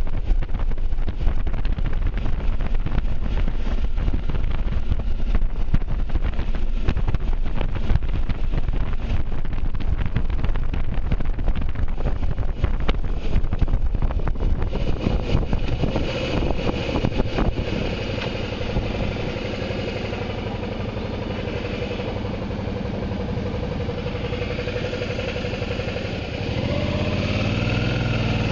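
Motorcycle ride with heavy wind buffeting on the microphone at speed. About halfway through the wind eases as the bike slows, and the engine's steady note comes through. Near the end the engine revs up, rising in pitch as the bike accelerates away.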